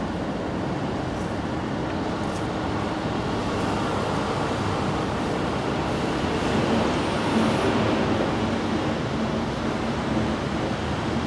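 Steady rumble of road traffic, swelling slightly about two-thirds of the way through as if a vehicle passes.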